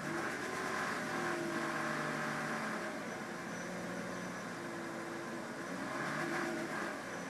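1999 BMW E46 323i's inline-six engine revved up and down a few times, with a jolting noise that the owner suspects is piston slap.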